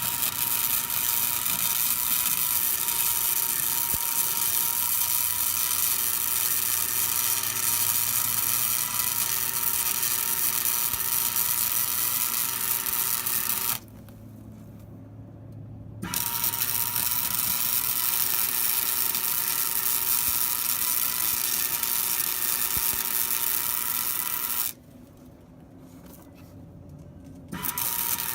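Hobart welder's arc crackling and buzzing steadily while welding steel chain hooks onto a bucket. It runs in beads: one long run of about fourteen seconds, a two-second pause, a run of about nine seconds, a pause of about three seconds, then the arc strikes again just before the end.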